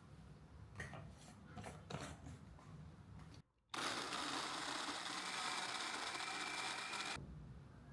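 A few light clicks and taps, then an electric blender starts abruptly about halfway in and runs steadily with a thin whine, blending an avocado milkshake, before stopping suddenly near the end.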